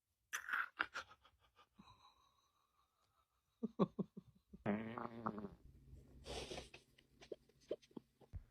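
Several fart noises: a sputtering one soon after the start and a longer buzzing one about halfway, with scattered short clicks and knocks between them.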